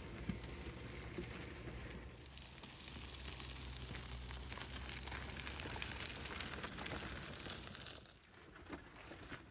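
Garden wagon loaded with firewood rolling over gravel, its wheels crunching and rattling on the stones together with footsteps on gravel; it grows quieter near the end as it passes.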